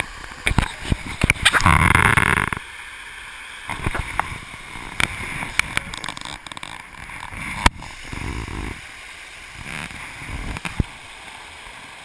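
Splashing and gurgling of a small creek cascade close to the microphone, with many sharp clicks and knocks and two louder surges of rushing water, the first about two seconds in.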